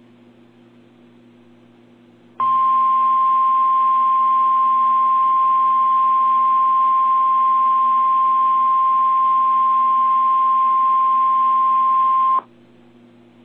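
NOAA Weather Radio warning alarm tone (1050 Hz): a single loud, steady pitch that starts a couple of seconds in, holds for about ten seconds and cuts off abruptly. It is the signal that an urgent warning broadcast is about to follow. Before and after it there is only low radio hiss with a faint hum.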